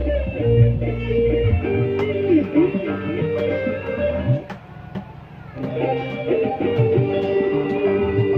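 Music with a lead electric guitar bending its notes over bass, played loud through large outdoor PA speaker stacks during a sound check. It drops away for about a second roughly halfway through, then comes back.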